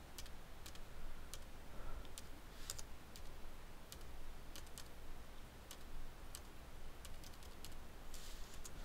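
Faint, irregular clicking from someone working a computer's keyboard and mouse: a dozen or so sharp clicks spaced a fraction of a second apart, over a low steady hum.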